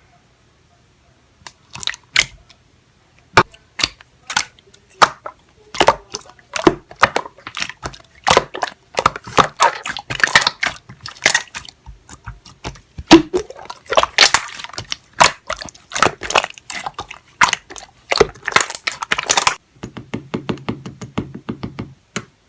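A rapid, irregular run of sharp taps and clicks, like typing, dense for most of the stretch. It gives way near the end to a brief steady low buzz.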